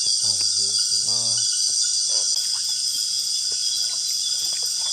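Steady, high-pitched chorus of many insects, with a voice saying a few words near the start.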